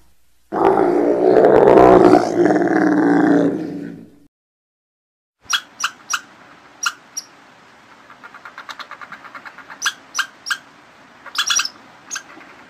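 A Bactrian camel bellowing in a long, wavering groan for about three and a half seconds. After a brief silence come faint, scattered sharp clicks from a red squirrel, with a quick run of ticks in the middle.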